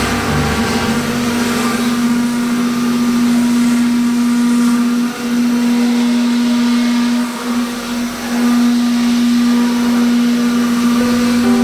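Spindle of a large CNC milling machine running while it mills a wood pattern: a steady, even hum with a constant pitch and a noisy hiss above it, briefly dipping in level twice near the middle.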